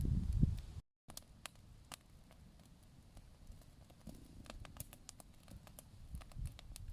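Low muffled thumps for the first second, cut off abruptly, then faint scattered pops and ticks of a crackling campfire.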